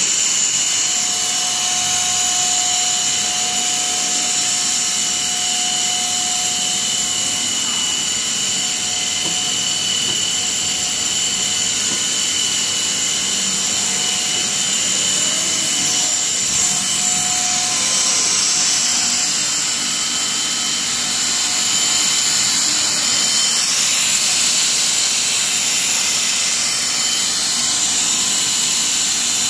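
PE pipe extrusion line running: a steady mechanical whir with high-pitched whining tones layered over it.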